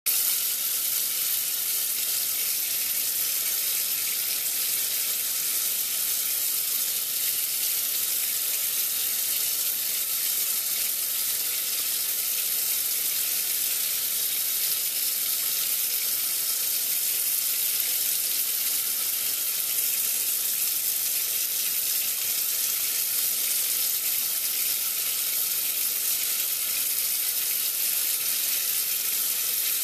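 Kitchen tap running steadily into a stainless steel sink, a continuous even hiss of water.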